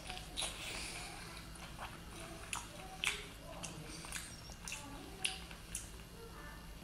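Close-up chewing of cooked octopus, with wet mouth smacks and sharp clicks about twice a second.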